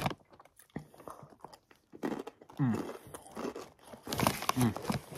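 Close-up crunching and chewing of Takis Nitro rolled tortilla chips, mixed with the crinkle of the plastic chip bag as a hand reaches into it. The crunching is sparse at first and grows busier after about two seconds.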